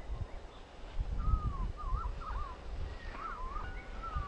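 A bird singing a series of short, slurred whistles that loop up and down, over a low rumble of wind on the microphone.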